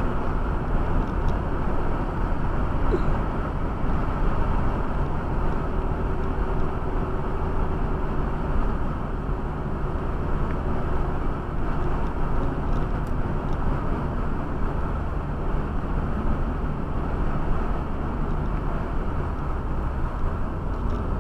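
Steady drone of a car driving at about 70 km/h, heard inside the cabin: engine and tyres on asphalt.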